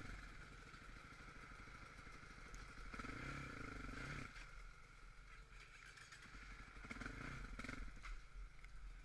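Quad (ATV) engine idling at low volume, revved up twice with short throttle blips, about three seconds in and again about seven seconds in.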